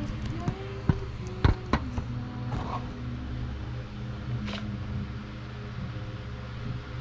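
Camera handling noise: a few sharp knocks and rubs as the GoPro is picked up and set down on a tile floor, the loudest about a second and a half in, over a steady low hum.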